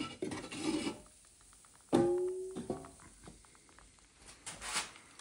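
Wooden crossboards of an electrolysis tank being lifted and shifted on the rim of a plastic drum, rubbing and scraping. About two seconds in comes a sharp knock that rings briefly, followed by a few light clicks.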